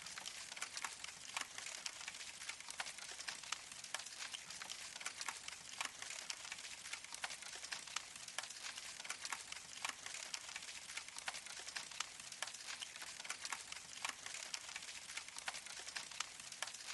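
Fire crackling: a steady hiss thick with small sharp pops and snaps.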